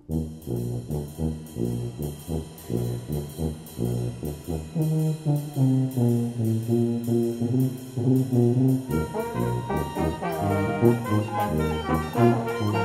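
Symphonic wind band playing. A rhythmic passage of short, accented notes in the low register starts at once. About nine seconds in, higher instruments join with a melodic line over it.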